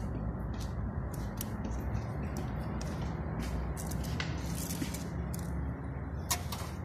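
Light metallic clicks and scrapes of a piston and feeler gauge being handled to check piston ring side play, scattered irregularly over steady background noise.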